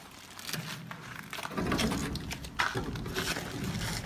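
Plastic sack crinkling and rustling as it is handled, with scattered clicks and knocks, busier from about a second and a half in.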